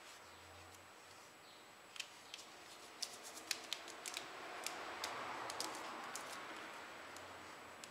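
Small paper sachet handled and torn open by hand: a run of small, sharp crinkling ticks with a soft tearing rustle in the middle.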